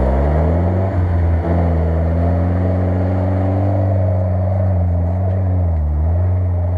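UAZ-469 off-roader's engine pulling under load as it drives over ice and snow. The revs climb at the start, hold steady, dip briefly near the end and then pick up again.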